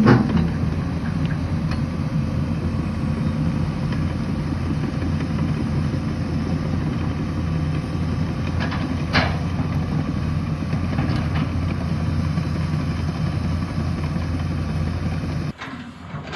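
Heavy diesel engine of a Sany 215 excavator running steadily, with a sharp knock about nine seconds in and a fainter one about two seconds later. The sound drops away abruptly shortly before the end.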